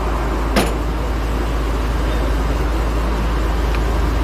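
Steady road and engine noise of a car being driven, heard from inside the cabin, with a single short click about half a second in.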